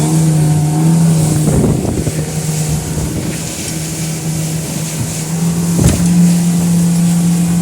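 Big Suzuki outboard engine running at speed on a fast boat, a steady engine hum over the rush of wind and water, with a couple of thumps, about two seconds in and again near six seconds.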